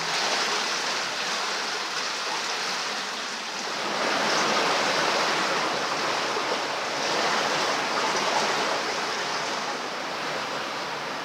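Water flowing and splashing in a narrow stone canal, a steady rushing that swells a little about a third of the way in.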